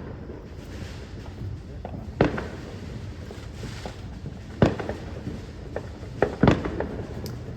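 Fireworks going off: four sharp bangs, the first two a couple of seconds apart and the last two in quick succession, each with a short echo trailing after it.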